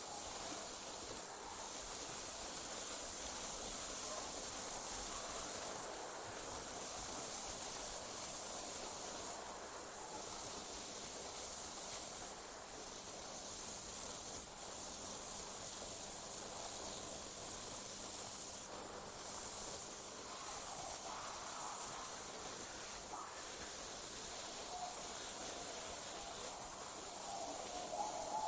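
Crickets trilling in a steady, high-pitched chorus of night ambience, broken by brief pauses every few seconds.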